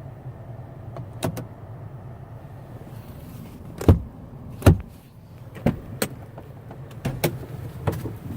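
Car with its engine running, a steady low hum, under a series of sharp clicks and knocks from handling in and around the car. The two loudest knocks come about four and four and a half seconds in.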